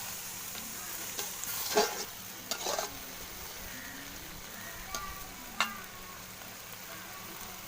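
Food sizzling in a hot cooking pan while it is stirred, with a few sharp knocks of the spoon against the pan.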